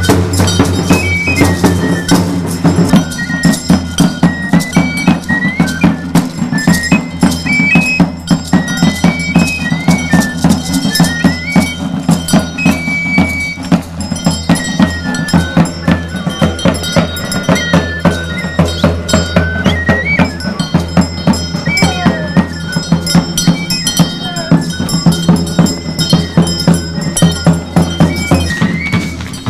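Live traditional Chiapas pipe-and-drum dance music: a high flute melody that steps and slides in short phrases over fast, steady drum and percussion strikes.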